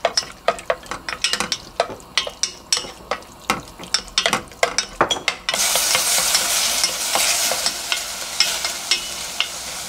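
Wooden spoon knocking and scraping against a stainless steel pot as raw beef pieces are stirred, in quick irregular clicks. About halfway through, a steady sizzle starts suddenly as the beef begins to fry in sesame oil, with the stirring clicks still audible over it.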